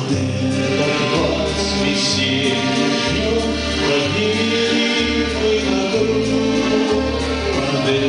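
A man singing a waltz in Russian to his own garmon (Russian button accordion). The accordion's bass notes alternate in a steady waltz beat, changing about once a second under the melody.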